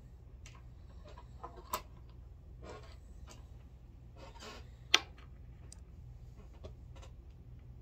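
Scattered small clicks and knocks of reloading gear being handled on a workbench, with one sharp click about five seconds in, over a low steady hum.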